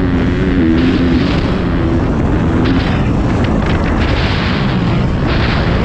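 Motocross bike engine running at speed, its pitch rising and falling with the throttle, under heavy wind buffeting on a helmet-mounted camera. The engine tone drops back in the middle and picks up again near the end.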